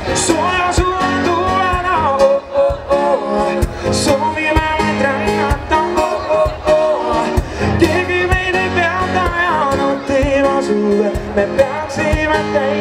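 Live pop song played over a PA system: a man singing into a microphone over acoustic guitar and a steady drum beat.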